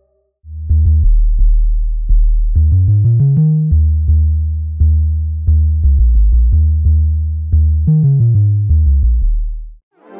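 Omnisphere software synth bass patch played from a keyboard: a line of deep, plucky notes, each with a sharp attack and a quick decay. There is a quick rising run of notes about two and a half seconds in and another fast run near the end.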